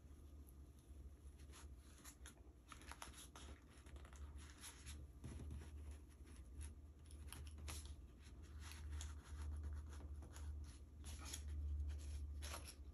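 Faint, irregular scratching and rustling of yarn rubbing against cardboard as a wrapped pom-pom bundle is worked off its cardboard template, over a steady low hum.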